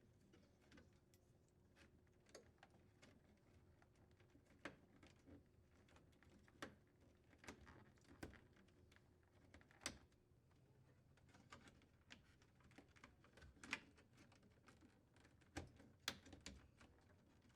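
Faint, irregular clicks and taps of wires and plastic connectors being handled and pushed into retaining hooks, a dozen or so small clicks scattered over otherwise near silence.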